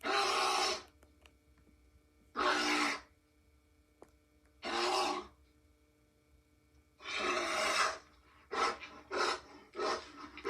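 Cartoon Rhinobear creature sound effects: a run of rough, noisy growling vocalisations, four longer ones about two seconds apart, then shorter, quicker grunts near the end.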